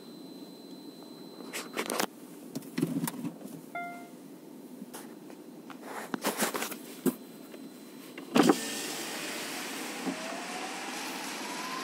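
Inside a car driving through floodwater: scattered knocks and a short beep. About eight seconds in there is a loud thump and the side window goes down, letting in a steady rush of water sprayed by the tyres. Near the end a distant siren begins, slowly rising in pitch.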